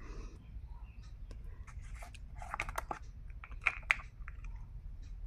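Irregular light clicks and taps, with a cluster of louder ones about two and a half seconds in and another near four seconds, over a low steady hum.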